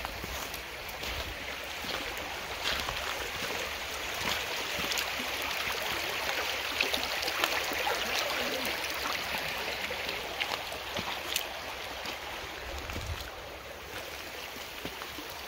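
Shallow creek water running over a bed of cobbles and pebbles, a steady rushing, louder in the middle stretch and easing near the end.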